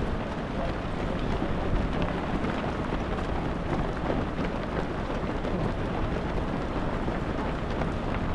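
Dense, steady patter of many runners' shoes on asphalt as a large field of half-marathon runners streams past.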